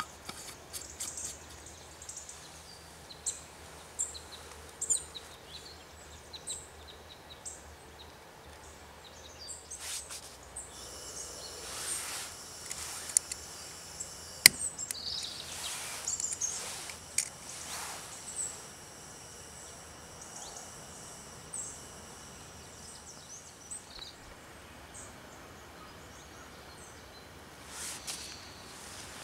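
Small birds chirping. Then, a little under halfway, a camping stove on a gas canister starts to hiss, and a sharp click comes as it is lit with a lighter. The burner keeps up a steady hiss after that.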